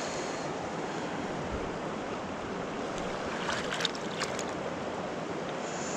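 Steady rush of a river's current flowing over rocks, with a few faint clicks a little past halfway.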